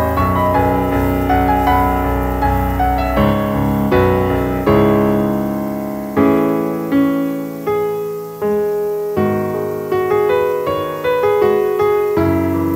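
Background piano music, its notes struck and left to die away.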